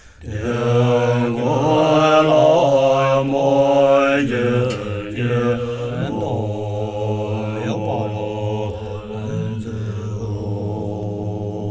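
Tibetan monastic ritual music. Dungchen long horns hold a low drone under gyaling shawms playing a wavering, sliding melody, with a few clashes of hand cymbals. It starts after a brief gap at the beginning.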